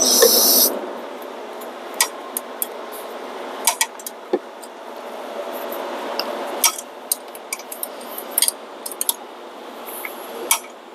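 Scattered light metallic clinks and taps of a wrench against bolts and engine parts, over steady background noise, with a short loud hissing rustle right at the start.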